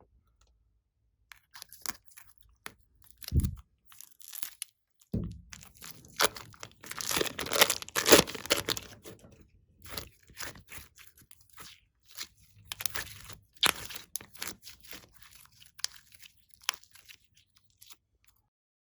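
Slime being mixed and squeezed by hand, giving irregular crackling, crunching clicks and pops that are densest midway, with two low thuds a few seconds in.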